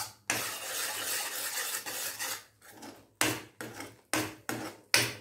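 Metal spoon scraping against the inside of a steel kadai while stirring thick badam (almond) paste. A steady scrape for about two seconds, then a quick run of short strokes, roughly three a second.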